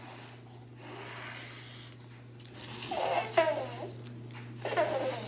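Quiet, breathy laughter: waves of breath with a few short voiced bursts about three seconds in and again near the end.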